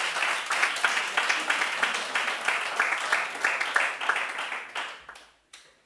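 Audience applauding, the clapping dying away and stopping about five seconds in, with a last stray clap or two just after.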